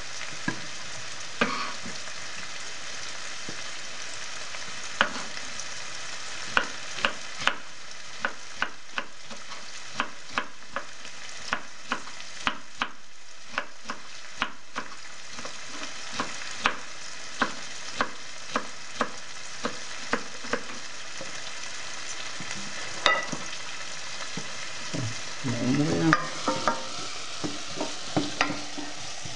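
Onions frying in olive oil in a pot give a steady sizzle. Over it, a kitchen knife chops a red pepper on a plastic cutting board, one tap about every half second to second through most of the stretch. Near the end a wooden spoon knocks and scrapes as it stirs the onions in the pot.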